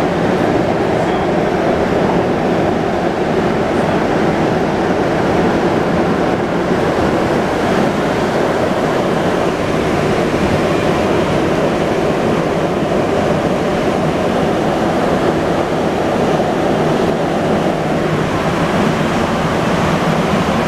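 Montreal Metro MR-73 rubber-tyred subway car heard from inside, running steadily through the tunnel: a loud, even rushing noise.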